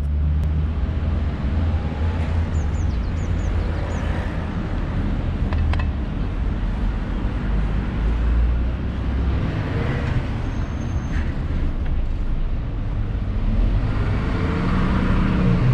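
Outdoor ambience: a steady low rumble of road traffic and wind on the microphone, with a few short high chirps about three seconds in.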